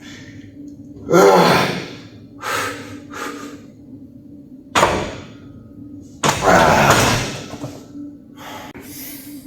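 Loud knocks and thuds of gym weights and equipment, several in a row, the biggest about a second in, about five seconds in and about six seconds in, mixed with heavy breaths, over a steady low hum.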